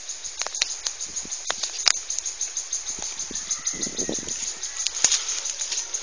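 Fast, even high-pitched chirping, about eight chirps a second, from a small creature, with sharp clicks scattered through and a short rustle about four seconds in.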